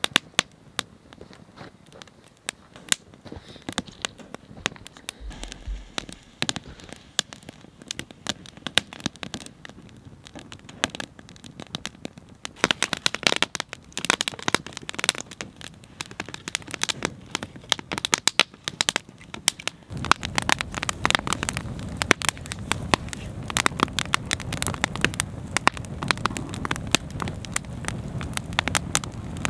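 Wood campfire crackling, with many sharp pops and snaps. About twenty seconds in, a steady rushing of burning flames rises under the crackle as the fire builds up.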